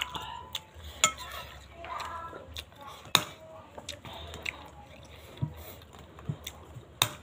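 Metal spoon clinking and scraping in a ceramic bowl of meatball soup, with several sharp clinks, the loudest about three seconds in, and some chewing.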